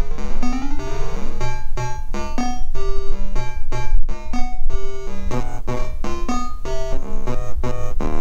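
A melody of short electronic keyboard notes run through a homemade PT2399 chip delay, each note followed by repeats. In the first second the echoes slide up and down in pitch as the delay time is changed, the early-digital, bucket-brigade-like pitch warble of this chip.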